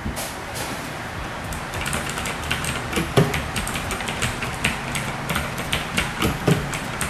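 Typing on a Tecware Phantom mechanical keyboard: a fast, irregular stream of key clicks, with two heavier thuds about three and six and a half seconds in.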